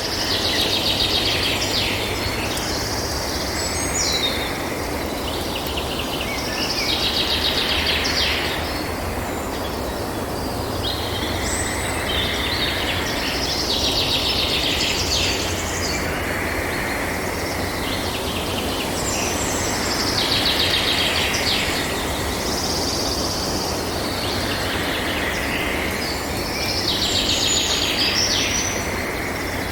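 Tropical forest ambience: birds calling in recurring bursts of rapid, high chirping notes about every six to seven seconds, over a steady background hiss and low rumble.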